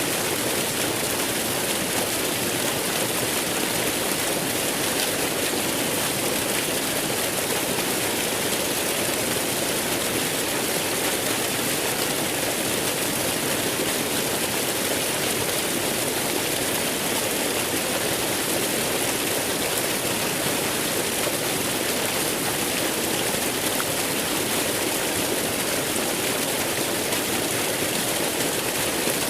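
Waterfall: water falling and splashing in a steady, unbroken rush, even in level throughout.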